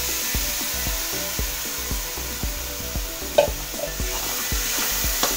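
Finely chopped tomatoes sizzling in hot oil and fried onion masala in a kadhai. A metal spatula stirs them in, scraping and clicking against the pan a few times, most sharply about three and a half seconds in and near the end.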